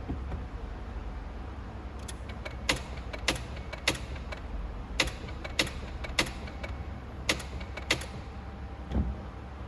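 A series of sharp mechanical clicks, about nine of them in short runs roughly half a second apart, over a low steady rumble.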